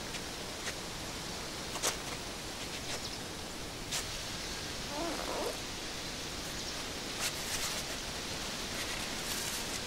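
Steady outdoor hiss with a few faint sharp clicks and rustles from tree branches as a child climbs in them, and a brief faint wavering call about five seconds in.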